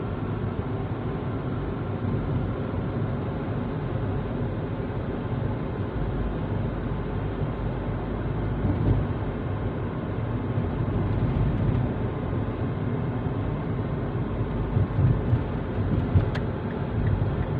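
Steady low rumble of a car driving on the road, heard from inside the cabin: engine and tyre noise, with a couple of light clicks near the end.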